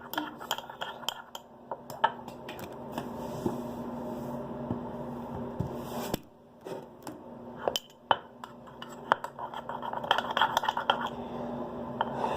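A utensil clicking and scraping against a bowl as slime ingredients (soap, salt, toothpaste) are stirred, in quick runs of clicks with pauses between. A faint low steady hum sits underneath.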